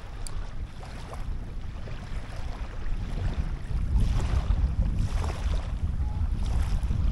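Wind buffeting the microphone, with light water washing at the shoreline; the gusts grow stronger about four seconds in.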